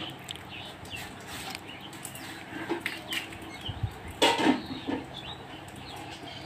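Quiet background with scattered soft rustles and small clicks from hands handling M-seal epoxy putty in its plastic wrapper, with a few louder rustles about four and five seconds in.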